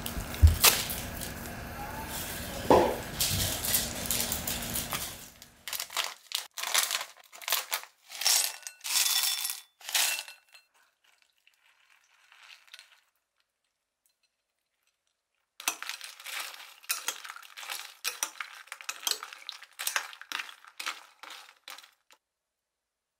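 A steady low hum that fades out about five seconds in, then quick runs of light clicks and clinks in two spells with a pause between.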